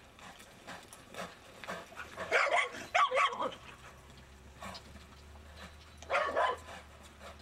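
A dog barking and yelping in a quick run of calls about two seconds in and again near the end, over faint regular thuds that fit a horse's hoofbeats in arena dirt.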